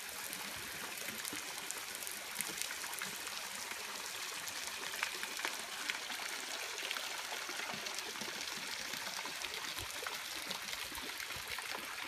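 Running water trickling and splashing steadily, with many small drips and splashes over it.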